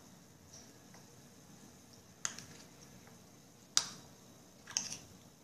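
Eating sounds close to the microphone: three short, sharp, wet clicks about two seconds in and then twice more a second or so apart, over a faint quiet background.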